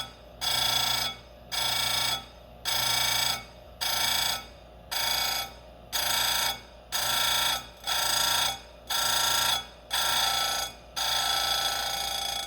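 Electric chain grinder's wheel grinding saw-chain cutters one after another: a loud whine about once a second, each lasting well under a second, with the motor's quieter hum between them. The last grind near the end runs longer.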